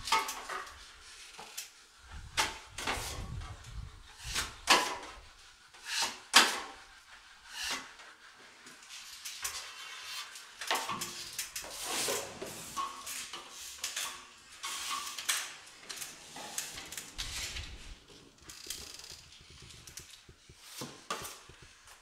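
Drywall trowel scraping and clacking against a hawk and across the wall as joint compound is skimmed on, in irregular sharp strokes, the loudest about six seconds in.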